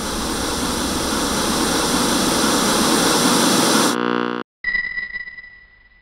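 Television static sound effect: a loud white-noise hiss that swells and then cuts off abruptly about four seconds in. A short buzz follows, then a high ringing tone that fades away.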